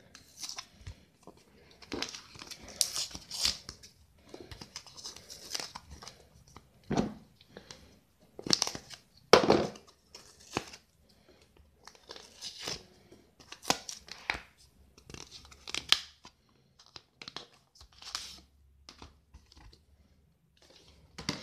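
Cardboard package of a tempered-glass screen protector being torn open by hand in irregular rips and crinkles, because it will not open along its tear line. The loudest rip comes about nine seconds in.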